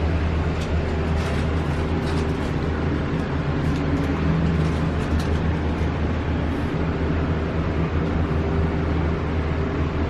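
Elevator cab running steadily on its way up the tower: a constant low hum with an even hiss over it.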